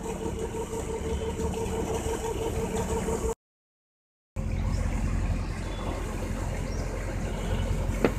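Tractor engine running steadily, driving a PTO water pump, with a constant hum. The sound drops out completely for about a second midway, returns with a deeper rumble, and a sharp click comes near the end.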